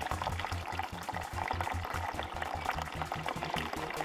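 Thin stream of water running from a garden water butt's tap into a plastic tub, splashing steadily onto the shallow water in its bottom as the butt is drained.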